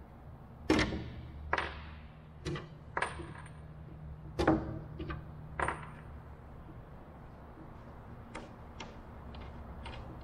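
A metal hinge and small tools handled on a wooden workbench: about a dozen scattered clicks and knocks, a few with a short metallic ping, over a steady low hum.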